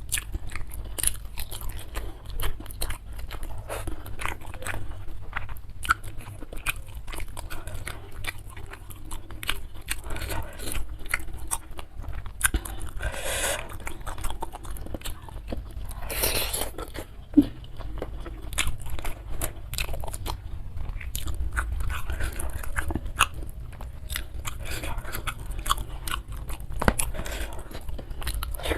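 Close-miked chewing and crunching of crisp food, with a steady stream of irregular crunches and mouth clicks and two longer noisy stretches near the middle.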